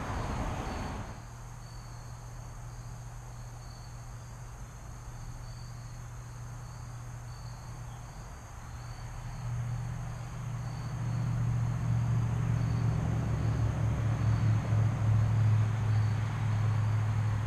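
Crickets chirping in a steady pulsing rhythm, over a steady low hum that grows louder through the second half. A brief rush of noise cuts off about a second in.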